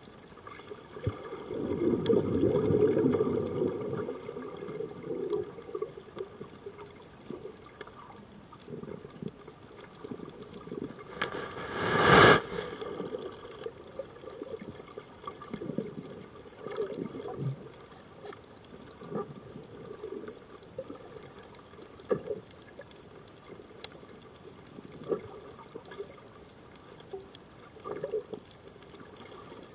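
Muffled underwater sound of a scuba diver's exhaled bubbles: a low bubbling gurgle about two seconds in and scattered small bubble pops later. One short, loud rush near the middle.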